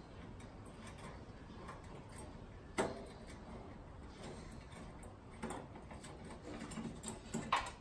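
Light metallic clicks and scrapes of a small hand screwdriver working the headlight retaining screws on a Datsun 620, with one sharper click about three seconds in and a few smaller ticks near the end.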